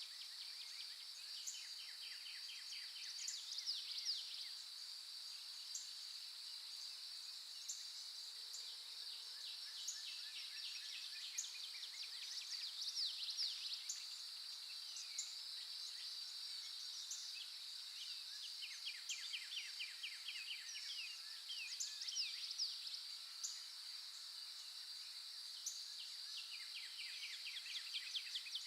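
Forest morning ambience: a steady high-pitched insect drone with songbirds singing over it. A rapid trilled song comes back every eight or nine seconds, among scattered short chirps.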